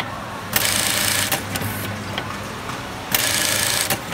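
JUKI computer-controlled button-sewing machine with a BME-518 vibrating-bowl button feeder, running two short sewing cycles of about a second each, one about half a second in and one about three seconds in. Each cycle starts with a click, over a steady low machine hum.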